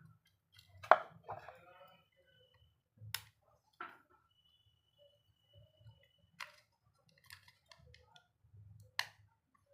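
Sharp plastic clicks and snaps from a keypad mobile phone's casing being opened up. There are about five separate clicks, and the loudest comes about a second in.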